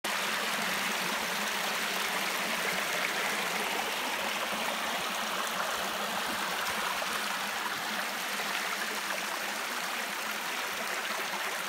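Shallow stream running over shale rocks: a steady rush of water.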